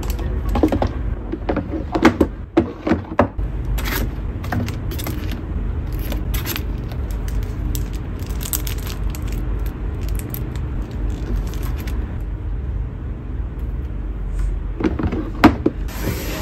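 Small stationery items being handled and set into a pulled-out desk drawer: a run of light clicks, taps and knocks, then quieter handling, and a few knocks again near the end as a board is set down.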